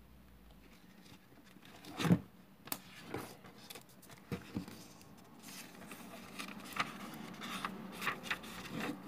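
Pages of a book being handled and leafed through: a knock about two seconds in, then short paper flicks and rustling that grow busier through the second half.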